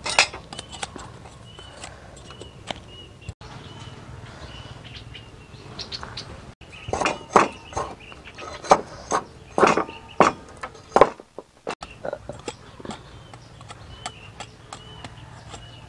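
A knife whittling a thin bamboo stick into a skewer: a quick run of about seven sharp scraping strokes midway. A small bird chirps a short high note again and again in the background.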